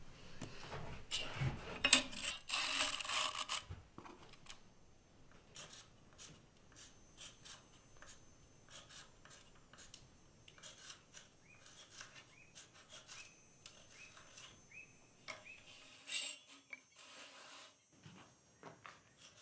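Light scraping and rubbing with scattered small clicks, the strokes densest and loudest in the first four seconds and then sparse and faint.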